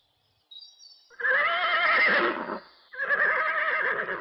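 Horse whinnying twice, each a long call with a wavering pitch; the second begins about three seconds in.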